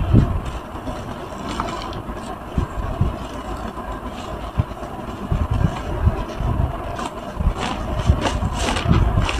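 Big flat square sponge squeezed in a thick suds of laundry powder, scouring powder, bleach and handwash soap, giving wet squelches and crackling foam. The crackling is strongest near the end.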